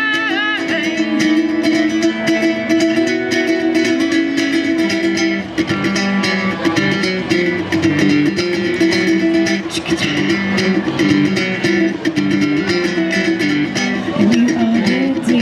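Acoustic guitar playing an instrumental passage through a PA, with a sung note with vibrato tailing off right at the start.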